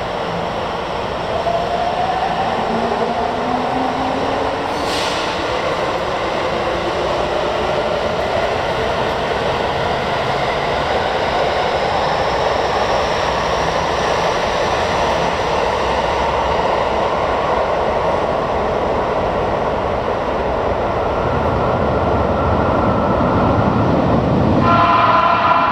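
Toei 10-300 series subway train pulling out, its motors whining in rising tones as it speeds up and its running noise building in the underground station. Near the end a steady chord of tones starts suddenly.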